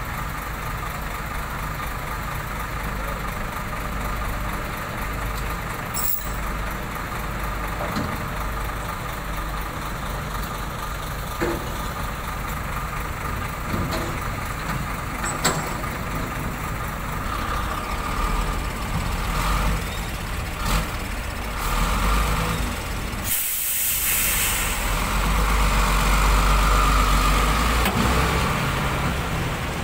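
Heavy diesel trucks idling with a steady low rumble, broken by a few sharp knocks. About two-thirds of the way through comes a loud burst of air-brake hiss, and then an engine grows louder as a truck pulls away.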